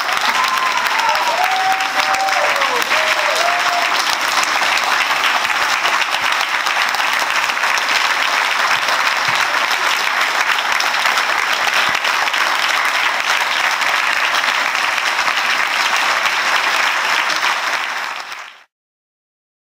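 Audience applauding, with a few voices calling out over the clapping in the first few seconds. The applause cuts off sharply near the end.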